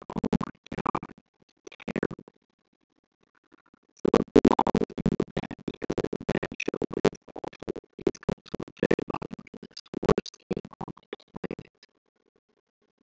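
Music in choppy stop-start bursts, with pauses of about a second and a half about two seconds in and again near the end.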